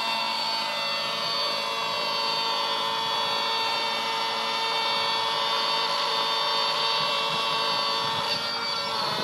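Glow (nitro) engine of a radio-controlled model helicopter running steadily with a high, buzzing whine. Near the end the pitch dips briefly and comes back up.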